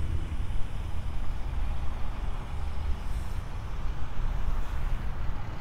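Wind buffeting the microphone in an irregular low rumble, over the steady hiss of road traffic on a wet street.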